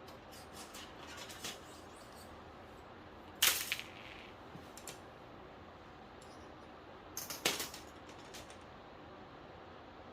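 Sharp clicks and light clatter of small hard parts being handled. One loud click comes about three and a half seconds in, and a quick run of several clicks about seven seconds in, with fainter ticks between.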